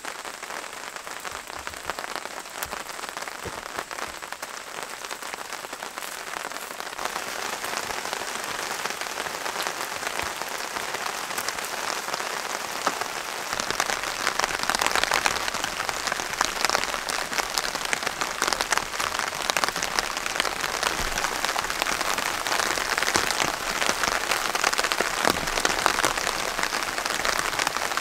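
Rain falling steadily, a dense hiss of drop hits that grows louder about halfway through.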